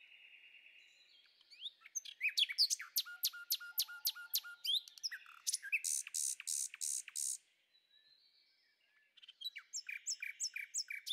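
Birdsong: a small bird sings a quick run of short, sharp chirps, about three a second, then a string of about five higher, longer notes. After a pause of about two seconds, a shorter phrase of chirps comes near the end.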